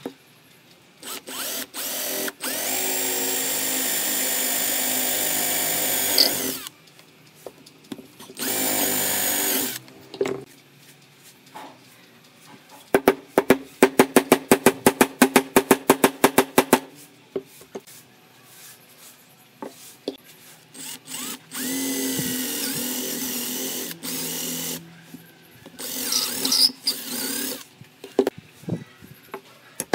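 Cordless drill boring into pine with a twist bit, running in several bursts of a few seconds each with pauses between. Around the middle comes a quick, even run of sharp clicks, about four or five a second.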